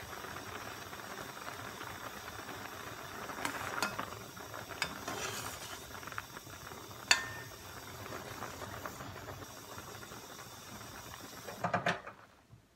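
Rice-cake soup at a rolling boil in a stainless steel pot, a steady bubbling hiss. A metal ladle stirs and clinks against the pot a few times, with one sharp clink about seven seconds in and a quick run of knocks near the end, after which the sound drops away.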